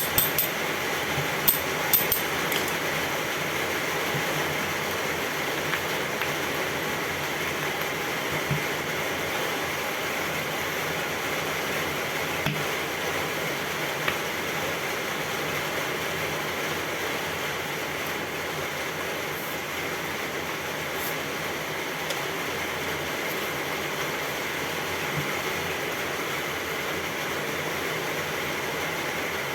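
A few sharp metallic knocks and clinks near the start, then only occasional single clinks over a steady, even background hum.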